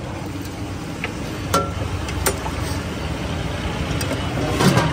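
Street ambience of steady passing traffic, with a few light metallic clinks from a serving spoon and steel dishes, the last and loudest near the end.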